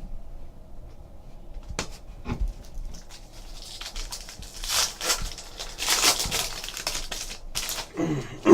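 Foil trading-card pack wrappers crinkling and tearing open, a dense run of rustling and quick ticks after a couple of light clicks, with a brief pitched sound at the very end.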